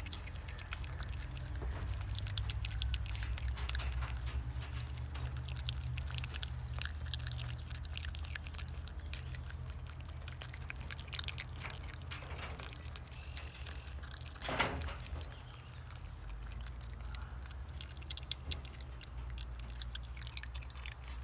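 Groundhog chewing a banana: a run of small quick clicks over a low steady rumble. There is one brief louder sound about fifteen seconds in.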